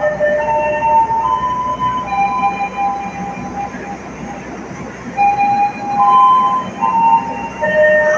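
A slow tune of clear, held electronic notes stepping from one pitch to another, played over a railway station's public-address speakers, with the general noise of the platform beneath.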